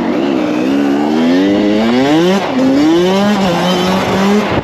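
2018 Kawasaki KX100 two-stroke single-cylinder dirt bike engine accelerating hard. Its pitch climbs, drops sharply about two and a half seconds in, climbs again, then holds steady.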